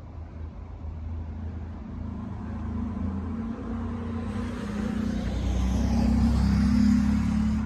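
A car's engine running and growing steadily louder as the vehicle comes closer. It is loudest near the end.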